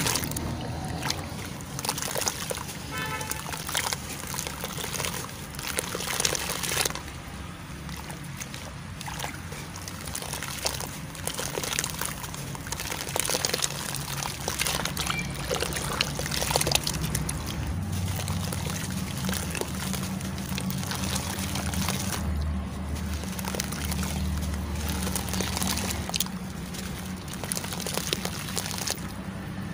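Hands crushing crunchy cylinders and charcoal pieces in a bucket of water: wet crumbling and crackling, with water sloshing, splashing and dribbling back from the hands.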